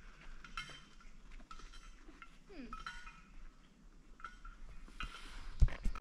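Footsteps along a forest hiking trail at a steady walking pace. A short falling squeal comes about halfway through, and a louder knock comes near the end.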